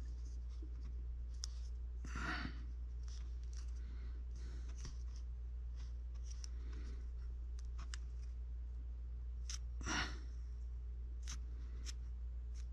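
Faint scraping and light clicking of a brass-shafted sculpting tool smoothing soft Monster Clay on a wooden rifle stock, over a steady low hum. Two short breaths stand out, about two seconds in and about ten seconds in.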